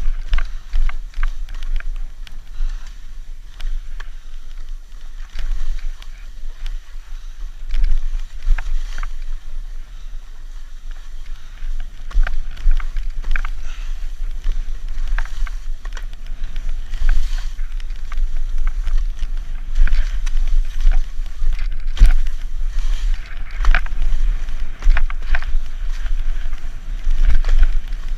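Wind buffeting a GoPro's microphone during a ski run, over the hiss and scrape of skis carving through snow, with scattered short knocks.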